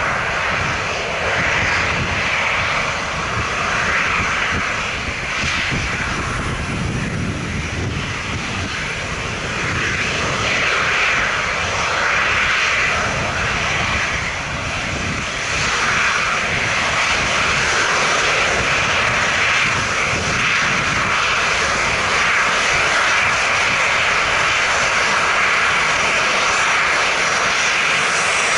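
Boeing 737-900ER's two CFM56-7B turbofan engines running at taxi power as the airliner taxis slowly toward the listener: a steady jet hiss over a low rumble, getting a little louder about halfway through.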